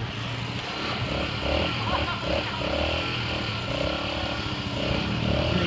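ATV engine running steadily at a mud hole.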